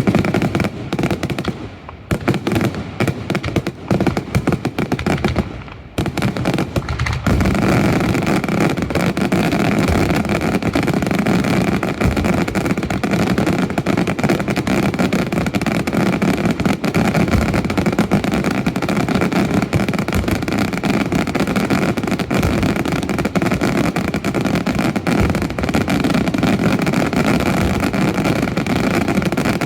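Daylight fireworks: separate loud bangs with short gaps, then from about seven seconds in a dense, unbroken barrage of bangs and crackling.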